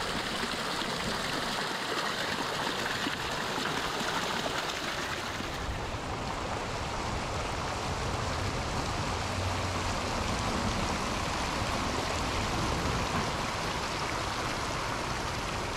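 Hot spring runoff running and splashing over rocks and stones, a steady rushing of shallow water.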